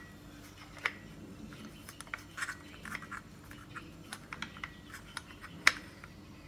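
Small, irregular clicks and scratches of a PCP air rifle silencer being fitted and screwed onto the barrel shroud, with one sharper click a little before the end.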